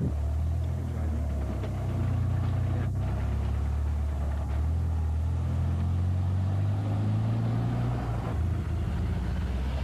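Car engine running while driving, heard from inside the cabin: a steady low hum that shifts slightly in pitch a couple of times.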